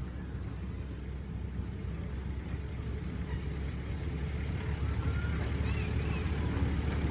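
Diesel locomotive of a 12-inch-gauge miniature railway approaching with its train of carriages: a low, steady engine drone that grows louder as it draws near. Faint bird chirps come in near the end.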